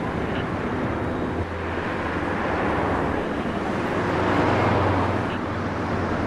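Car engines running with street traffic noise, a steady low rumble that swells louder about four to five seconds in, as a car passes.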